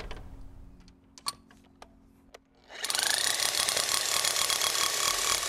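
An electric hammer drill fitted with a ground-rod driver starts a bit under three seconds in and hammers steadily, driving a copper ground rod into sandy soil, which it goes into easily. Before it starts there are a few light clicks.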